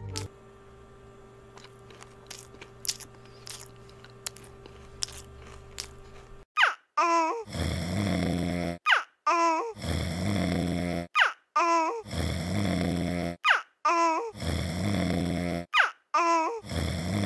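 A few faint clicks over a low steady hum. About six seconds in, a cartoon baby starts crying in loud wails that repeat about once a second, each opening with a falling glide.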